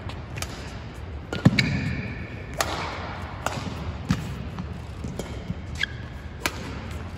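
Badminton rally: rackets striking the shuttlecock in sharp cracks about once a second, the loudest about one and a half seconds in, with shoes squeaking briefly on the court mat and feet thudding between shots.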